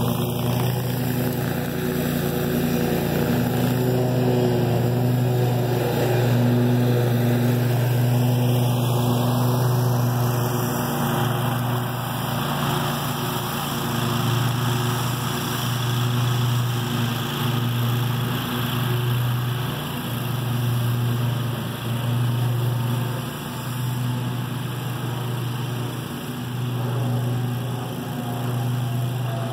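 Scag Tiger Cat II zero-turn mower's engine running steadily at mowing speed with the blades engaged, a constant low hum that gets slightly quieter in the second half as the mower moves away.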